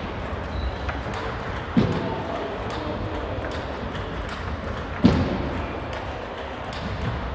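Table tennis balls clicking off tables and bats in a busy sports hall, with a low murmur of voices. Two dull thuds, about two seconds in and again about five seconds in, stand out as the loudest sounds.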